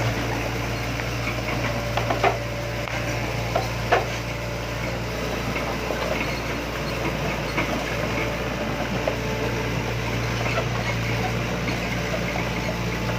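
An engine idling steadily with a low hum, with a few sharp knocks about two and four seconds in.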